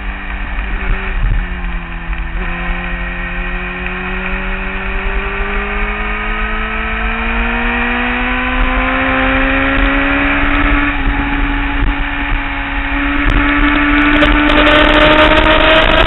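Kawasaki ZX-10 sportbike's inline-four engine heard from the bike itself under wind rush, pulling in one gear with its note climbing slowly and steadily as the bike accelerates. There is a short dip in pitch about two and a half seconds in, and the engine gets louder near the end.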